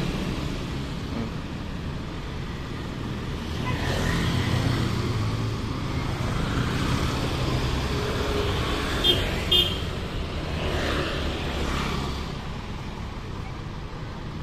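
Street traffic: tour bus diesel engines idling in a steady low rumble while motorcycles pass close by. Two short high horn beeps come about nine seconds in.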